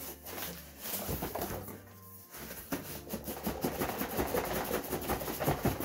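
A cardboard box being opened and handled: the flaps and packing inside rustle, scrape and crackle, getting busier about halfway through, over quiet background music.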